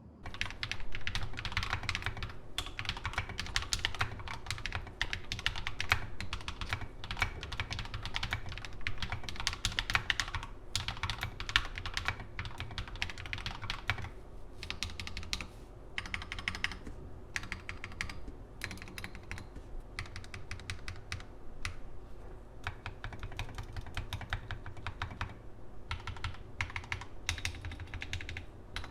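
Fast, continuous typing on a GMMK TKL mechanical keyboard fitted with Akko Matcha Green linear switches, with a few brief pauses between runs of keystrokes.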